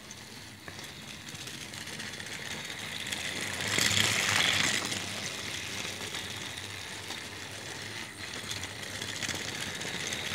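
Battery-powered Thomas toy train running along plastic track, its small motor and wheels making a steady rattling whir. It grows louder about four seconds in as it passes close, then settles again.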